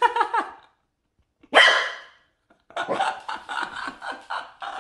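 Corgi puppy barking: one loud sharp bark about a second and a half in, then a run of quick, rapid yaps. Pitched squeals trail off at the start.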